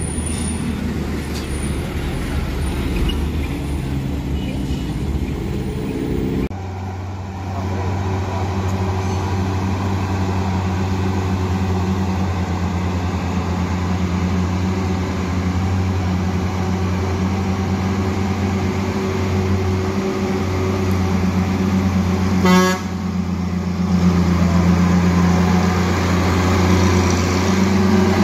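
Heavy truck diesel engines on a steep hairpin bend. After an abrupt change about six seconds in, a loaded truck's engine runs with a steady low drone as it climbs the bend, and a short horn toot sounds about three-quarters of the way through.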